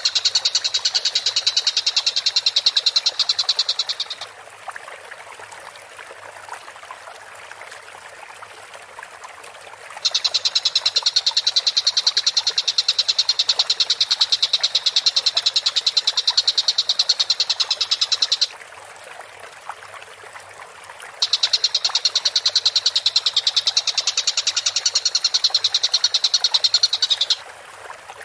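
Tengkek buto kingfisher calling: a fast, dense, high-pitched rattling trill in three long bursts, about four seconds at the start, then about eight seconds, then about six, with pauses of a few seconds between them.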